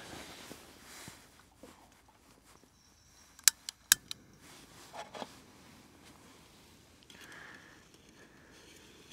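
Jetboil Minimo stove being put together on its gas canister: handling rustle, then a few sharp clicks and a couple of lighter knocks as the parts are fitted.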